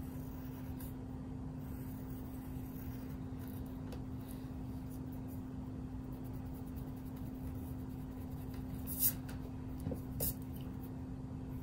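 Pencil scratching and a rubber eraser rubbing on paper, faint under a steady low electrical hum, with two short sharp rustles of the paper near the end as a hand sweeps across it.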